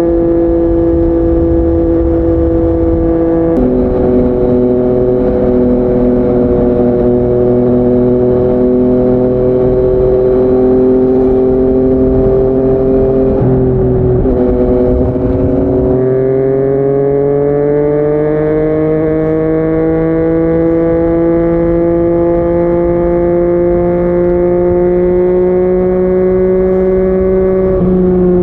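Yamaha MT-09's inline-three engine through a Yoshimura R55 slip-on exhaust, running under way at fairly steady revs for the first half. A little past halfway the note drops, then rises slowly and steadily as the revs climb.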